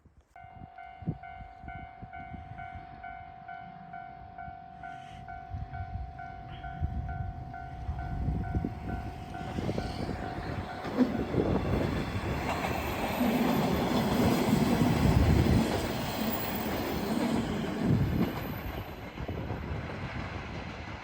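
Japanese level crossing's electronic warning bell ringing a rapid, repeated 'kan-kan' tone, which stops about eleven seconds in. A JR Shikoku Dosan Line diesel train passes over the crossing with wheels clacking on the rails, loudest a few seconds after the bell stops, then easing off near the end.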